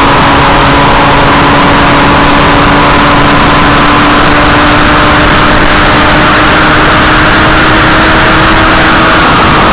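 E-flite Commander RC sport plane's electric motor and propeller at full power, heard very loud from a camera on the airframe with heavy wind rush: a steady drone whose pitch creeps up slightly and drops near the end. The owner says the plane has a vibration issue that needs sorting out.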